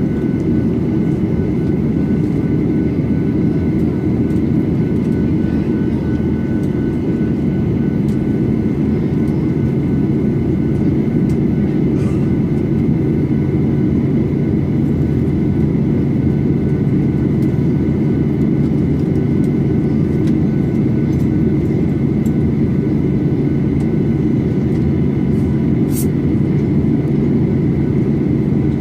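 Steady cabin noise inside a Boeing 737-800 standing on the ground with its CFM56 engines idling: a constant low rumble with faint steady whines over it. A single short click near the end.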